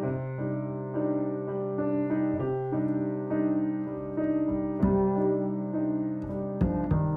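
Piano playing slow, soft chords, a new chord struck every second or so over a held low note.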